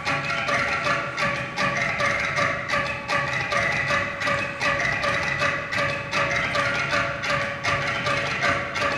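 Homemade rhythm machine: a power-tool-driven tube studded with cable ties, the ties flicking against hand-held objects in a fast repeating pattern of wooden-sounding clicks and knocks, over a steady hum.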